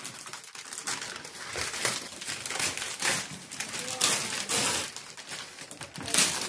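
Gift wrapping paper crinkling and tearing as presents are unwrapped: a steady run of rustles with several louder rips.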